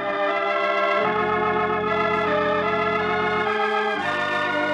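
Organ music bridge between scenes: sustained held chords, changing to a new chord about a second in and again near the end.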